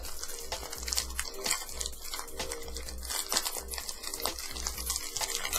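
Hershey's milk chocolate bar wrapper being torn and peeled open by hand: a string of small crinkles and crackles.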